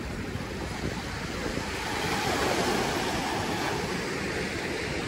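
Waves washing onto the beach, swelling about two seconds in, with wind rumbling on the microphone.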